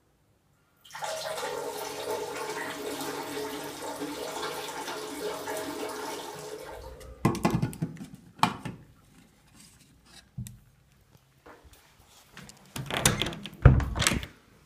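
Water running in a steady stream, starting about a second in and stopping after about six seconds. Scattered clicks and knocks follow, with a louder knock near the end.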